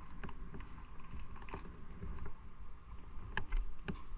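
Motorcycle running at low speed, heard muffled under wind rumble on the microphone, with a few light clicks near the end.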